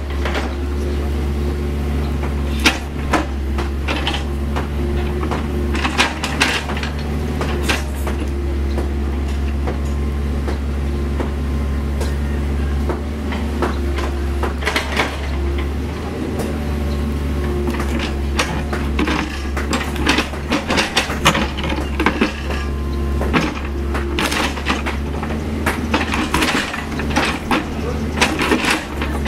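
CAT 304E CR mini excavator's diesel engine running steadily, with frequent sharp clanks and knocks of the steel bucket against stones and soil as it digs, busier in the second half.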